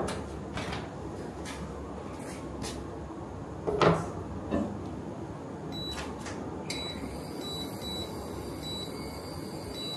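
A lidded pot knocks down onto the glass top of an induction cooker about four seconds in, with a smaller clink after it. A couple of seconds later the induction cooker beeps as its controls are pressed, and a steady high-pitched whine from the cooker starts as it powers on, with a few more short beeps.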